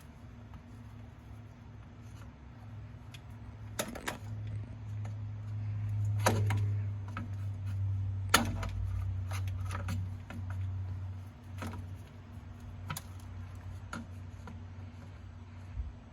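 Scattered sharp clicks and knocks from hand work on the plastic push-pin clips that hold a suspension trim cover, about half a dozen spread out, over a steady low hum.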